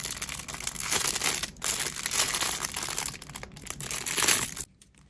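Thin clear plastic bag crinkling as fingers pinch and pick at its sealed edge to open it, stopping briefly near the end.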